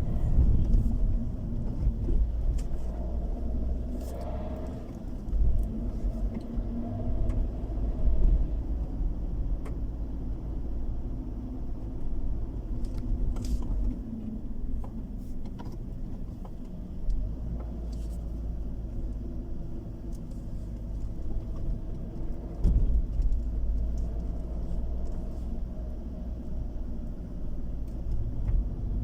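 Car running and tyres rumbling on the road, heard from inside the cabin, a steady low rumble with a few faint clicks and knocks.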